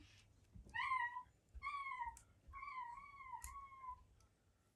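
A cat meowing: four high meows over about three seconds, each rising then falling in pitch, the last two running together into one longer, wavering call.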